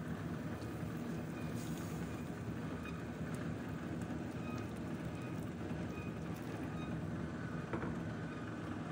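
Boiling water being poured into a simmering pot of herbal chicken soup: a steady rushing and splashing.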